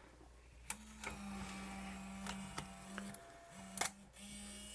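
Small motor of the Sharp VL-E620 Video8 camcorder's tape mechanism whirring with a steady hum. It starts with a click, stops and restarts a few times, with another click near the end.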